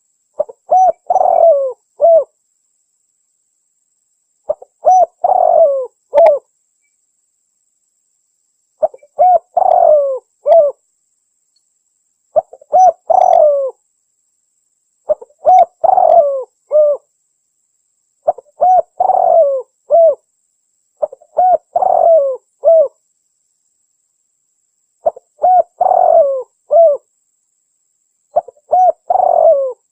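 Domestic spotted dove (tekukur) singing in the Javanese 'anggunan' style: phrases of deep, rounded cooing notes, each phrase a short run of coos ending in a separate final note. The phrases repeat about every three to four seconds, nine times, with silence between them.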